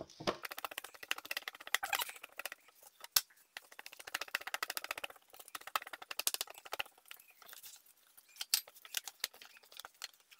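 Fingers pressing and stretching oiled dough out thin on a wooden tray: a dense, irregular crackle of small sticky, squelching clicks as the oily dough is worked, with a few sharper clicks among them.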